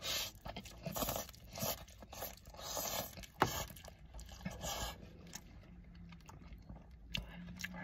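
A man eating instant ramen noodles with chopsticks: faint, irregular bursts of slurping and chewing, with one sharp click about three and a half seconds in.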